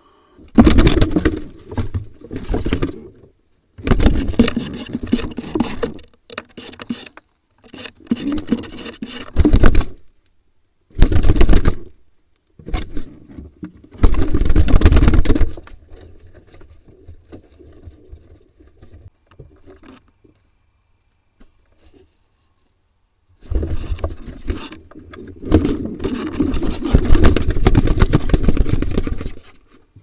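Wings flapping and birds scuffling against the walls and nesting material of a wooden barn owl nest box, close to the microphone, as a barn owl strikes at pigeons. The sound comes in repeated loud bursts of one to three seconds, with a longer burst near the end.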